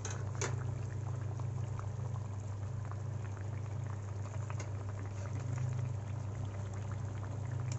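Egg and potato curry gravy simmering in a pan, bubbling with many small pops over a steady low hum. The curry is nearly done.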